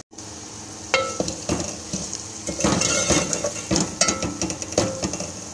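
Spatula stirring and scraping mutton mince frying in oil in a pan, with a steady sizzle and several sharp clinks of the spatula against the pan. The mince is fried through.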